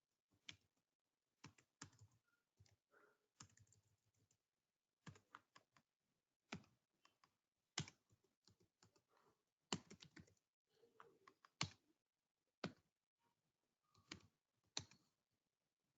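Faint, irregular clicking of typing on a computer keyboard, keystrokes coming singly and in quick runs with short pauses between.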